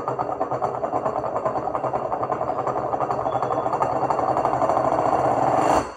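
A small motor running with a rapid, even pulsing, then cutting off abruptly near the end.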